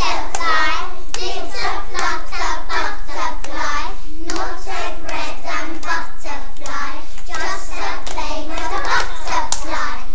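A group of children chanting a rhyme in unison while clapping along.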